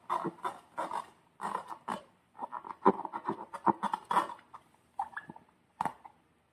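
Slime and rubber balloons being handled, giving irregular squishing and rubbing noises in short bursts separated by brief pauses.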